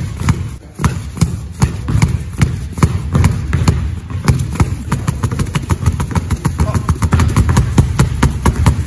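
Basketballs wrapped in plastic bags being dribbled hard on a hardwood gym floor: a steady run of sharp bounces, about three a second at first, then a quicker, denser patter about halfway through as two balls are dribbled at once.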